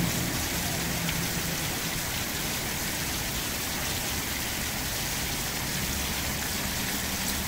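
Steady splashing rush of fountain water falling into a reflecting pool.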